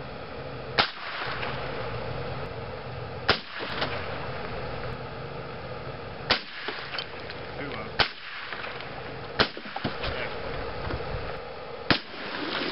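Six .22 rimfire gunshots, single sharp cracks fired one at a time about one and a half to three seconds apart.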